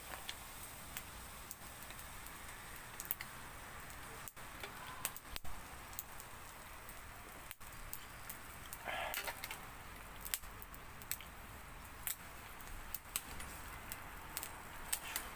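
Wood fire crackling in a small stainless camp wood stove: a steady hiss with sharp pops scattered irregularly throughout.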